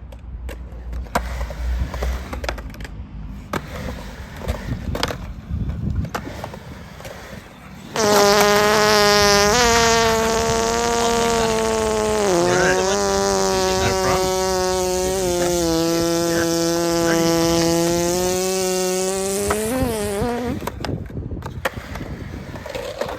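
Skateboard wheels rolling with scattered clacks, then about eight seconds in a loud buzzing sound effect starts abruptly and holds a low, fairly steady pitch for about twelve seconds, dipping briefly partway through, before the skateboard rolling returns.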